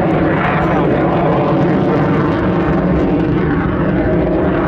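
Boeing F/A-18F Super Hornet's twin General Electric F414 turbofan jet engines, a loud, steady jet roar during its flying display.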